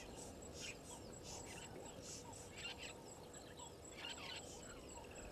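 Faint bushveld ambience: birds calling in short, scattered chirps, one every half second to a second, over a steady thin high-pitched whine.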